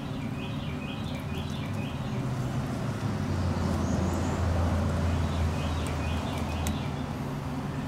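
Outdoor background: a low, steady motor hum that swells through the middle, with a bird chirping in short repeated phrases, twice.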